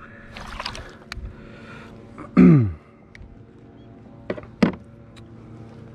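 Handling noise aboard a plastic fishing kayak during a trout release: a short splash near the start, a sharp click, a brief falling tone about two and a half seconds in, and two sharp knocks near the end.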